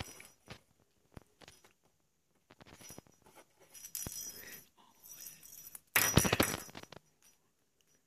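A conure's beak and feet knocking, rolling and biting a hollow plastic ball toy on a tabletop: scattered taps and clicks, with a loud burst of rapid rattling lasting about a second, about six seconds in.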